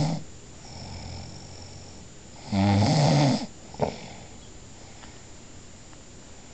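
Snoring in loud, rasping breaths: one ends just after the start, a softer breath follows, and another loud snore comes about two and a half seconds in. It ends in a short, sharp catch.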